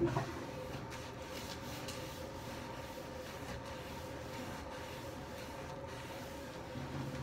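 Soapy sponge rubbing back and forth on a bathroom vanity countertop, over a steady hum; a short knock right at the start.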